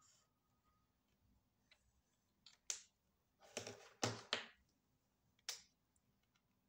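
Short plastic clicks and knocks of pens being handled: a single click, a quick cluster of clicks and knocks about a second later, then one more click.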